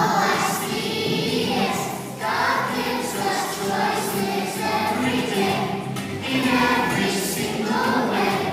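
A group of young children singing together in unison, in phrases with short breaths between them, about two and six seconds in.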